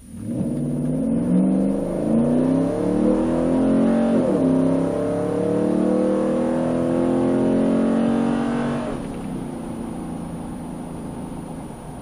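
Nissan Titan's 5.6-litre V8 on JBA long-tube headers and a Borla 40944 muffler with a Vibrant Ultra Quiet resonator, heard from inside the cab under hard acceleration. The exhaust note rises in pitch, drops sharply as the transmission upshifts about four seconds in, climbs again, and eases off when the throttle is lifted near nine seconds.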